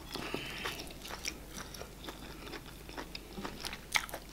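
Close-miked eating sounds: soft, irregular wet clicks of chewing and lip smacks from people eating eba with slimy okra soup by hand, with one louder click at about four seconds in.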